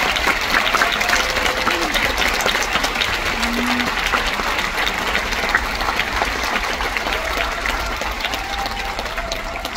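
Theatre audience applauding a curtain call: dense, steady clapping from a large crowd that slowly dies down toward the end.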